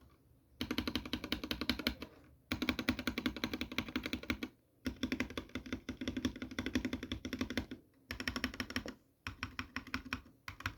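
Mechanical keyboard with linear switches being typed on fast, in six bursts of rapid key clicks a second or two long, with short pauses between them.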